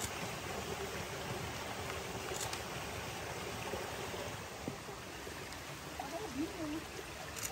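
Steady rushing of a flowing stream, with faint distant voices about six seconds in.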